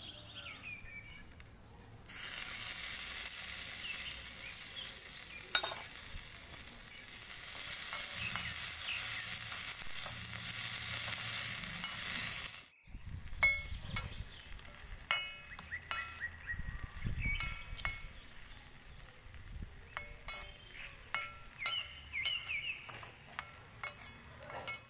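Chopped tomatoes sizzling in hot oil in a miniature iron kadai, the sizzle starting suddenly about two seconds in. About halfway through the sizzle drops and a small spatula clicks and knocks against the pan as the tomatoes are stirred.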